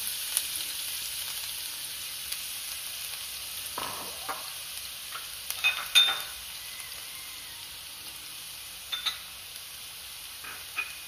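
Chopped onions frying in hot coconut oil in a pan, a steady sizzle that slowly dies down. A spatula stirs them and knocks against the pan a few times, loudest about six seconds in.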